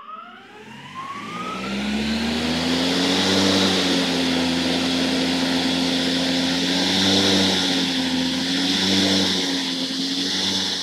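Husqvarna LE-322 battery-powered lawn mower's electric motor and blade spinning up from start, a rising whine over about two seconds, then running steadily with a hum and a rush of air from the deck. The pitch dips and recovers slightly a few times. It is running in the mode the owner guesses is eco mode.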